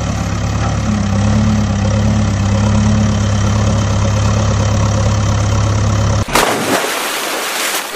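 A steady, heavy engine sound effect idling, laid over a toy excavator as it rolls down the ramp. It cuts off sharply about six seconds in, and a splash follows as the toy excavator drops into the water.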